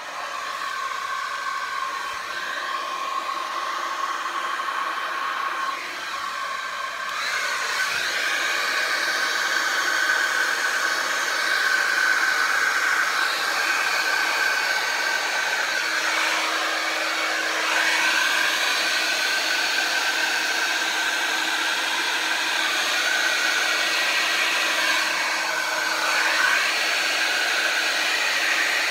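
A blow dryer switched on and running steadily, blowing wet acrylic paint across a canvas. It gets louder about seven seconds in.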